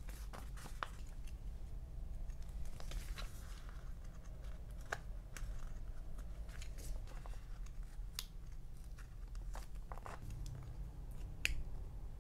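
Small craft knife cutting through paper and a sticker sheet, with light paper rustling and scattered short clicks; a sharper click near the end. A steady low hum lies underneath.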